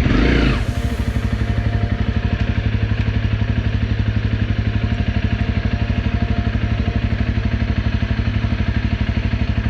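Honda CRF250Rally's single-cylinder engine idling steadily, with an even, rapid pulsing beat through its SP Tadao Powerbox exhaust pipe. A brief louder burst comes right at the start, then falls away into the idle.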